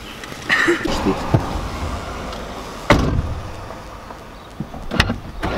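A car door slams shut about three seconds in, heard from inside the car's cabin, followed by a second sharp knock about two seconds later.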